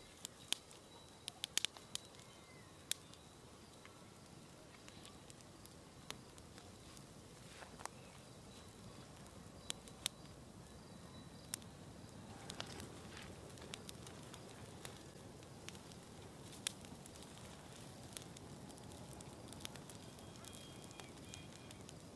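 Brushwood fire of dry twigs burning, with sharp, irregular crackles and pops over a low rush of flame that grows louder about halfway through as the fire takes hold.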